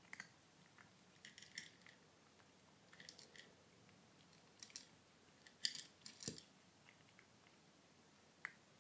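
Kitten crunching dry cat kibble: faint, irregular crunches in small clusters every second or two, the loudest a little past the middle.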